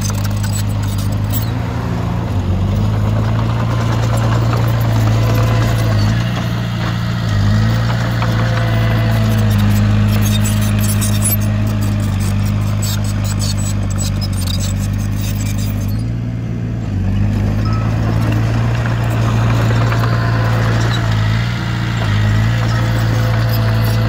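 Diesel engine of heavy earthmoving machinery running steadily, its pitch and loudness dipping briefly several times, with light clattering at times.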